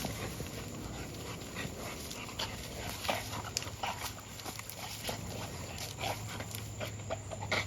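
American bully dog chewing and tearing at a punctured rubber basketball, with scattered short crunches and rips over a steady low hum.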